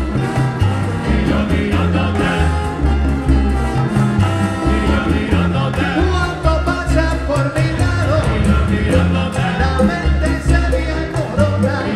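Live salsa band playing, with trombones, congas and timbales over a strong bass line, and a male lead singer singing.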